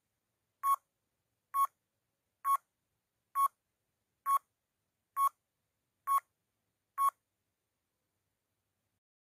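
Countdown timer sound effect: eight short electronic beeps, evenly spaced a little under a second apart.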